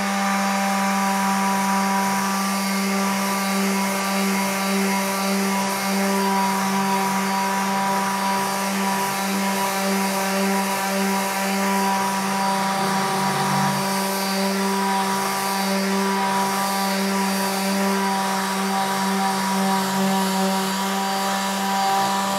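Worx WX822 cordless detail sander, a brushed-motor tool, running steadily at one constant pitch while sanding wood with an 800-grit pad.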